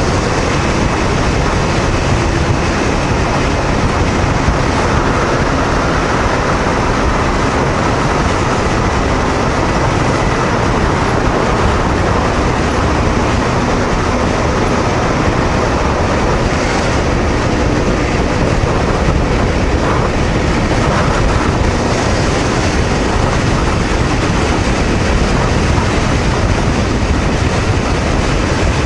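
Steady, loud rush of wind and road noise from a Honda VTR250 motorcycle cruising at highway speed, about 105 km/h, with its 250 cc V-twin engine running underneath. Much of it is heard inside a road tunnel.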